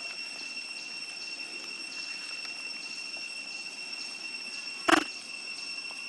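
Steady high-pitched insect drone over outdoor hiss. About five seconds in, one brief loud sound cuts through.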